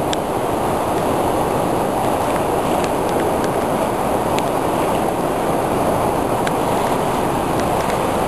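Typhoon floodwater rushing past in a swollen river: a loud, steady noise of fast, turbulent water.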